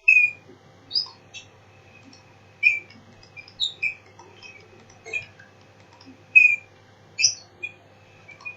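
Small birds chirping: short, high chirps, some sliding in pitch, repeated irregularly every half second or so.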